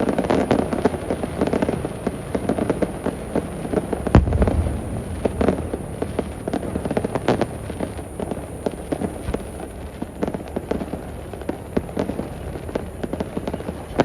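Fireworks display: shells bursting in a dense run of sharp crackles, with one heavy low boom about four seconds in.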